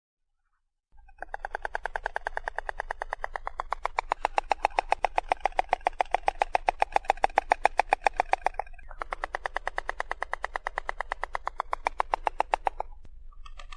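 A stork clattering its bill: a fast, even rattle of sharp wooden clacks, about ten a second. It comes in three bouts, starting about a second in, with short breaks near nine seconds and just before the end; the first bout is the longest and loudest.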